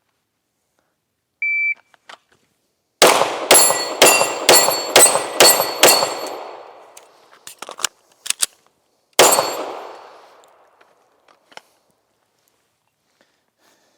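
PACT Club III shot timer's start beep, then a handgun fired seven times in quick succession about half a second apart, a short pause with a few faint clicks, and an eighth shot; each shot rings on and fades out.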